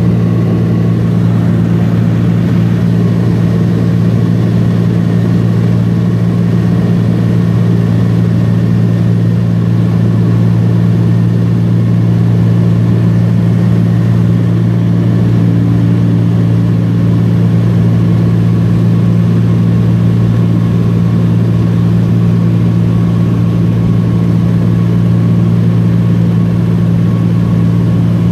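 A small plane's engine and propeller running at a steady, loud drone in flight, heard inside the cabin.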